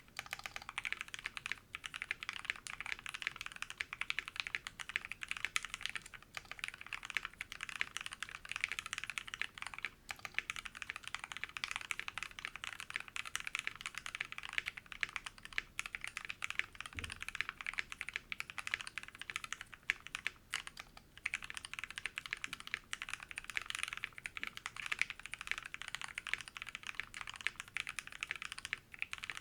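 Continuous typing on a Tofu65 mechanical keyboard with Kinetic Labs Gateron Hippo linear switches, lubed and filmed, on a brass plate with foam and PBT keycaps: a dense, steady stream of thocky keystrokes with a few short pauses.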